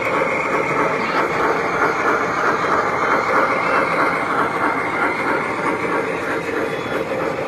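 Large-scale model steam locomotive in Union Pacific livery rolling past close by with its train of cars: a steady rumble and rattle of metal wheels on the track.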